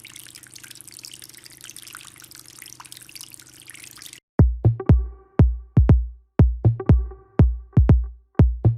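Water from a small homemade fountain trickling and dripping softly over a low steady hum, cut off about four seconds in by electronic dance music with a heavy kick drum.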